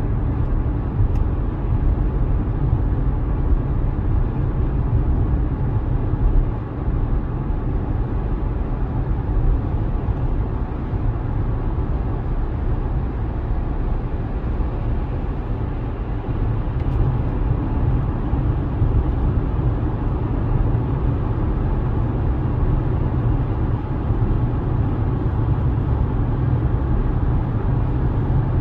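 Car driving at a steady pace: a constant low rumble of road and engine noise with no change throughout.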